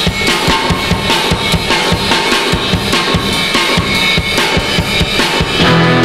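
Drum kit on a 1965 British rock record playing a busy break of rapid bass drum and snare hits, with the other instruments held low. Near the end the bass and the rest of the band come back in with sustained notes.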